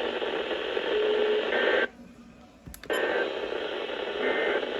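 Weather radio receiver hissing with static and faint tones on a weak signal. It cuts out for about a second, two seconds in, then comes back. The poor reception is what the listener suspects of the station's backup transmitter being farther away.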